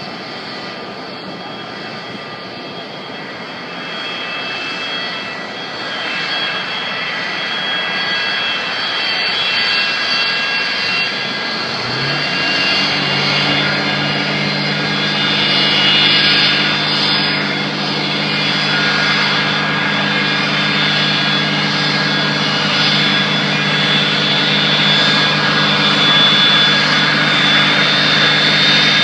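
Boeing 727's three Pratt & Whitney JT8D turbofans whining and roaring as the jet taxis, growing louder as it approaches. About twelve seconds in, a steady low drone starts with a brief rise in pitch: the airport fire trucks' engines powering their water cannons.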